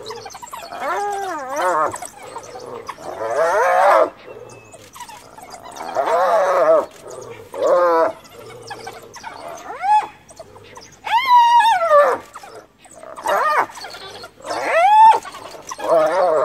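Spotted hyena, cornered and bitten by African wild dogs, giving loud distress calls: about nine wavering squealing, giggling cries one to two seconds apart, two of them long whoop-like rises in pitch about ten and fifteen seconds in. Such calls are the hyena's sign of fear, which here serve as a call to its clan for help.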